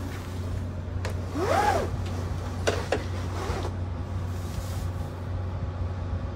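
Steady low hum inside a sleeper-train compartment of the Cassiopeia. A few sharp clicks cut in, and about a second and a half in there is a short tone that rises and falls.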